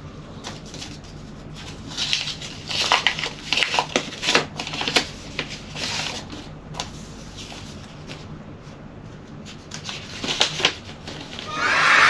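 Paper being handled: envelopes and sheets rustling and flapping in quick clusters, busiest about two to five seconds in and again around ten seconds in, over a faint steady hum. A louder sound comes in right at the end.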